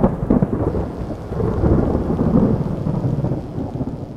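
Thunderstorm sound effect: a long low rumble of thunder over rain, dying away near the end.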